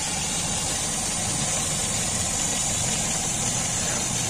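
Premier Padmini's four-cylinder petrol engine idling steadily, running on a freshly rebuilt carburettor fitted with a new kit.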